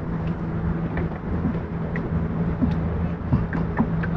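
Wind rumbling over the microphone outdoors on open water, with a steady low engine hum underneath and scattered small ticks.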